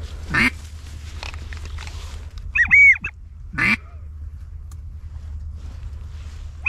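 Ducks quacking: a few short calls, the loudest a higher, arched call about midway, over a steady low rumble.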